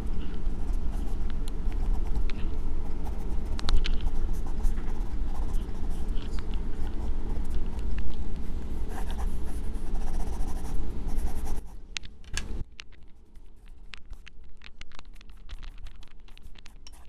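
Pencil scratching on paper in short shading strokes over a low steady rumble. About two-thirds of the way through the rumble drops away, and the strokes go on as scattered sharp scratches.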